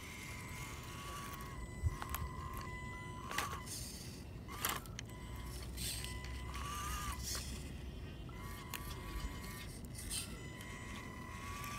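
WPL Ural RC truck's small electric motor and gearbox whining as the truck crawls slowly over rocks. The steady high whine wavers and swells as throttle is fed in. A few sharp clicks come from the tyres and chassis knocking on rock about two, three and a half, and five seconds in.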